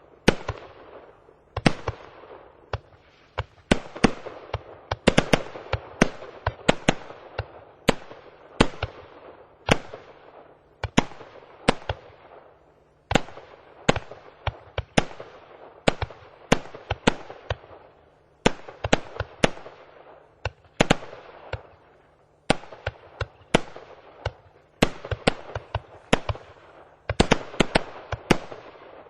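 Consumer fireworks battery (the 'Festival II' cake) firing shot after shot. Sharp bangs come about one to two a second, many in close pairs, and each trails off into an echo.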